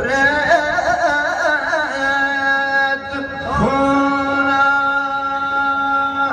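Music: a voice sings long ornamented notes with quick wavering over a steady drone, then slides up into a held note a little past halfway.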